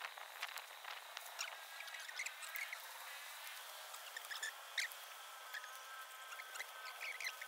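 Faint squeaks from a large rat caught in a wire cage trap: short high chirps come several times, over a faint steady high-pitched drone.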